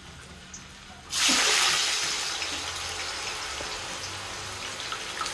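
Raw cut potato chips dropped into hot cooking oil in a karai: a loud sizzle starts suddenly about a second in, loudest at first, then settles into steady frying.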